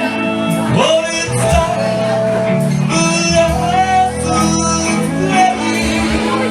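A live band playing a song, with sustained instrument notes over a steady bass line.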